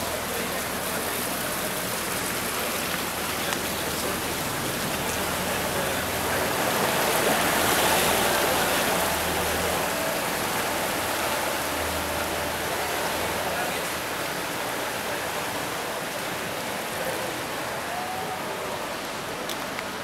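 Wooden motorboat passing close by on a canal, its engine running under the rush and splash of its wake. The rushing swells to its loudest about eight seconds in, then eases off.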